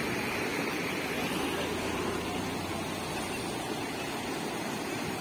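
Swollen stream in flood after heavy rain, its turbulent brown water rushing past in a steady, unbroken wash of noise.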